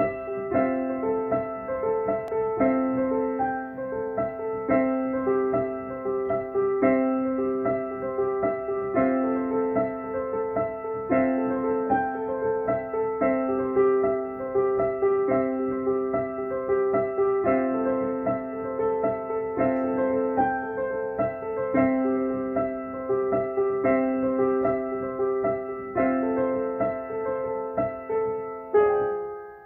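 Gentle solo piano music: a soft figure of notes repeating about every two seconds, ending on a struck chord that rings out and fades near the end.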